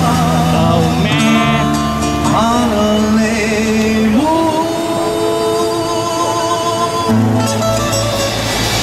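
Background music: a song with singing over plucked guitar and a bass line, with long held notes.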